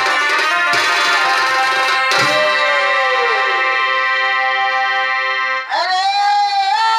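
Live Chhau dance music: a reedy wind instrument plays a held, wavering melody over drum strokes. The drums drop out after about two seconds, and the melody carries on in long, sliding notes. Near the end a louder, bending melody line comes in.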